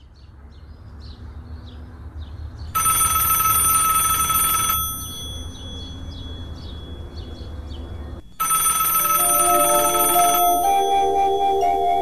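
Old-style telephone bell ringing twice, each ring about two seconds long with a pause of several seconds between, over faint chirping and a low rumble. Under the second ring a piano begins playing a slow melody near the end.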